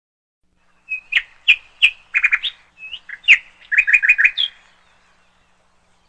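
A bird singing: a quick run of sharp chirps and clear whistled notes, with a fast cluster of repeated notes near the end. It starts about a second in and stops after about three and a half seconds.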